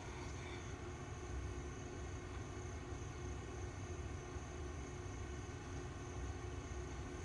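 A steady low rumbling drone with a faint constant hum over it, unchanging throughout.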